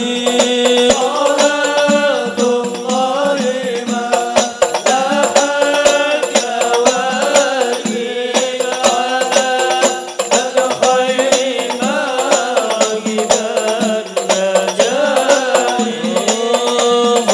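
A group of male voices chanting Arabic shalawat together through microphones, a winding, ornamented melody sung in unison, with sharp percussive taps throughout.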